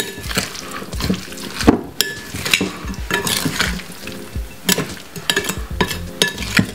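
Raw chicken pieces being mixed into a red Thai curry marinade in a bowl: irregular wet, sticky mixing sounds with scattered light clicks against the bowl.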